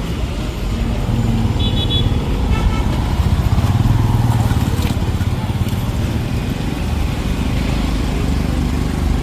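Road traffic with motorcycles and cars running past, a steady rumble that swells in the middle, with a short high beep about two seconds in.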